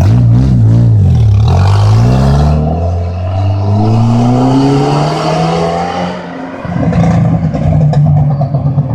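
Jeep with a loud exhaust being revved: the engine note swings up and down a few times, then climbs in one long rise, drops back about two-thirds of the way through, and settles to a lower rumbling idle near the end.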